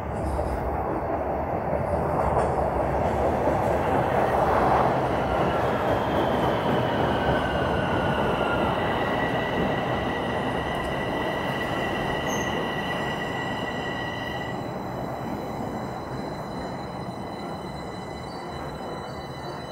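TTC Line 1 subway train moving along the station platform, a steady running noise that is loudest a few seconds in. From about five seconds in, the wheels squeal in several high steady tones for around ten seconds, and then the train noise slowly fades as it pulls away.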